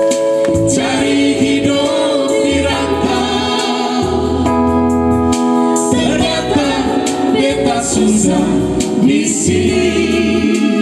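A woman and men singing together into microphones, amplified through a PA, over electronic keyboard accompaniment with a bass line that comes in and out.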